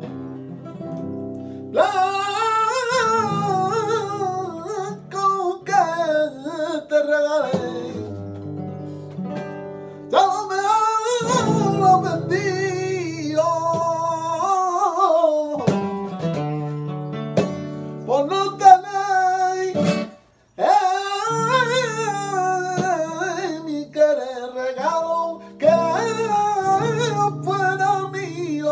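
Flamenco singing por fandango: a man sings long wavering phrases over a nylon-string flamenco guitar, with short passages of guitar alone between the phrases.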